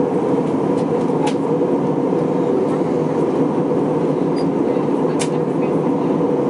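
Steady in-flight cabin noise inside an Airbus A321-231: the drone of its IAE V2500 turbofan engines mixed with the rush of air along the fuselage, with a steady hum. A couple of faint clicks are heard, about a second in and near the end.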